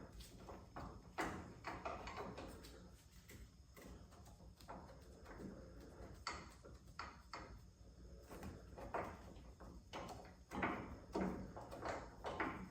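Irregular light knocks and clatter of hand tools and metal hardware being handled during door-hinge work, with a few sharper knocks about a second in and again near the end.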